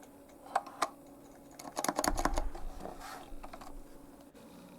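Typing on an Apple M0116J keyboard with salmon Alps switches: two single key presses, then a quick run of keystrokes about two seconds in that thins out.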